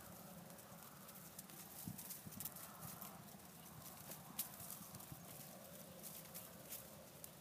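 Faint hoofbeats of a bay gelding walking on soft arena dirt, with scattered light clicks.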